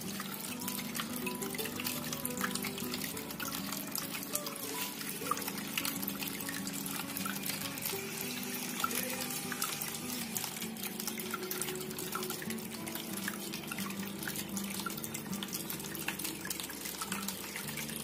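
Small tabletop water fountain running: thin streams of water pouring from its spouts and splashing into the basin, a steady trickle with scattered drips, over soft background music.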